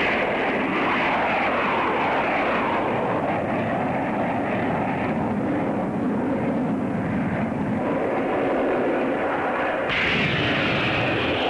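Military jet aircraft engines running loud and continuous, with a falling pitch from about a second in as an aircraft passes. The sound changes abruptly near the end, at an edit, to another stretch of aircraft engine noise.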